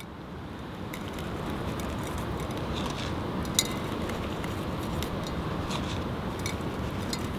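Steady rushing background noise, swelling slightly over the first second, with a few faint light ticks.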